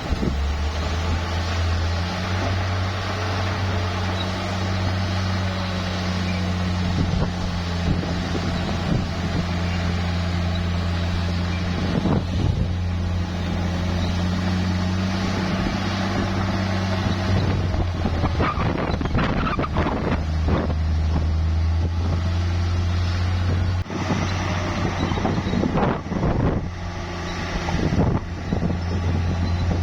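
Heavy bulldozer's diesel engine running steadily under load, with bursts of clanking and knocking from the tracks and pushed rock about two-thirds of the way in and again near the end.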